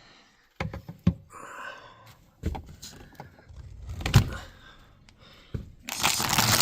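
Gear being handled in a van's storage: a handful of knocks and clunks, then a bag rustling near the end.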